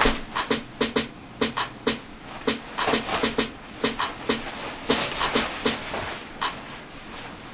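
A rhythmic run of sharp percussive knocks, each with a low thud, about two to three a second at uneven spacing.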